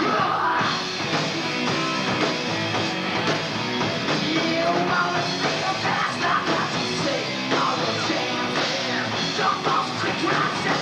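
Hard rock band playing live: electric guitars, bass and drums at a steady full volume.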